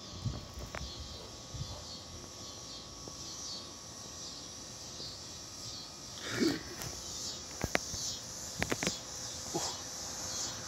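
Night insects chirping in a steady, evenly repeating high-pitched chorus. A few sharp clicks and short knocks come in about two-thirds of the way through.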